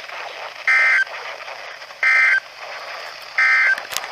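Three short bursts of EAS SAME digital data (warbling two-tone data) from a NOAA Weather Radio broadcast, about a second and a half apart over radio hiss: the end-of-message code that closes a weather warning.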